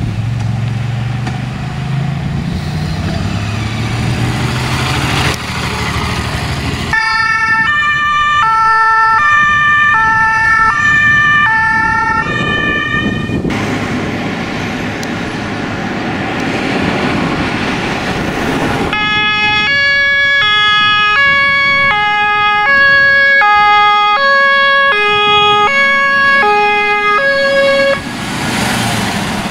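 A motorcycle engine runs past, its pitch rising. Then the German two-tone emergency horns (Martinhorn) of fire engines sound, switching back and forth between two notes. In the second half two horns play at once and out of step, over the trucks' engines.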